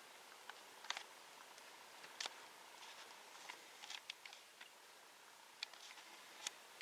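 Near silence with about a dozen faint, sharp clicks and ticks at uneven intervals.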